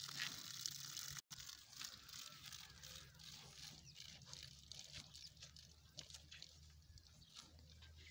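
Faint tearing and crunching of cattle cropping and chewing grass, over a low steady hum. The sound drops out for an instant about a second in.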